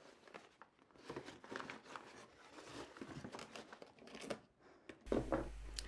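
Faint, irregular rustling and crinkling of brown wrapping paper and cardboard being handled and folded around a package, with a few sharp crackles.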